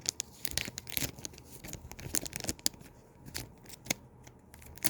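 Plastic trading-card packaging being handled and torn open, a dense run of irregular crinkles and crackles that thins out to a few scattered clicks over the last couple of seconds.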